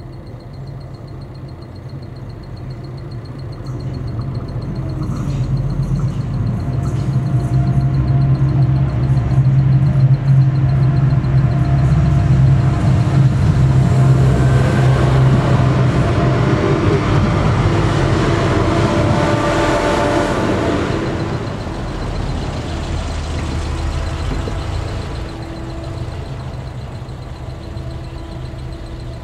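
PESA ATR 220 diesel multiple unit approaching and running over a level crossing. Its diesel engine hum builds over several seconds, with the noise of wheels on rails loudest as it passes about halfway through, then dies away.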